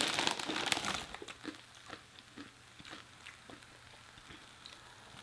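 Close-up crunching as Takis tortilla chips dipped in melted cheese are bitten and chewed, loudest in the first second, then quieter, scattered crunches.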